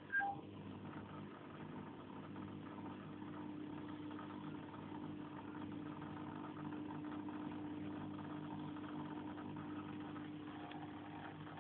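Low, steady electric hum of a reptile tank's filter pump, with a short high blip dropping in pitch about a quarter second in.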